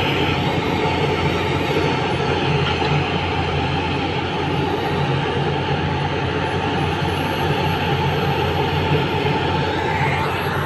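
Heavy diesel engines running in a steady drone as a SANY crawler excavator digs soil and loads it into a tipper truck, heard from inside a truck cab.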